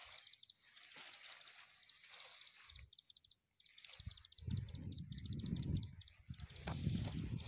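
Outdoor field ambience with a rapid, high, even chirping throughout. From a little past halfway, loud low muffled rumbling sits right on the microphone, the loudest part of the sound.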